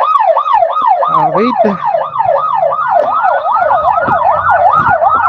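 Emergency-vehicle siren wailing in a fast yelp, its pitch sweeping up and down about three times a second. A second siren joins about halfway through and overlaps it, over the low hum of vehicle engines, as the response vehicles head out.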